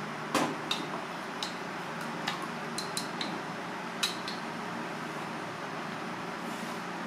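Chopsticks clicking and tapping against a bowl while beating egg: a handful of sharp, irregular clicks, some with a brief ring, in the first four seconds or so. A steady background hum runs underneath.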